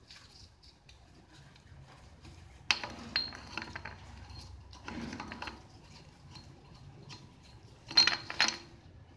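Metal clinks and short rattles as a camshaft and its timing-chain sprocket are worked loose and lifted from the cylinder head of a Nissan 1.6 engine. There is a sharp clink about three seconds in, a smaller cluster around five seconds, and the loudest rattle near the end as the sprocket end tips up.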